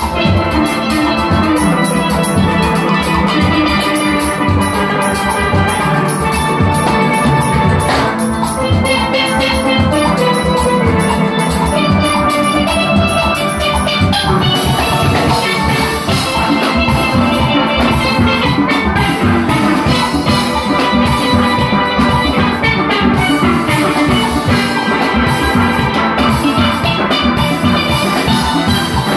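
Steel orchestra playing: many steel pans, from chrome-plated lead pans to blue-painted lower pans, struck in busy interlocking notes over a drum kit keeping time, at a steady full level.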